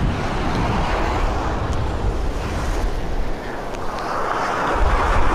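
Ocean surf washing onto a sandy beach, with wind buffeting the microphone; the surf swells louder about four seconds in.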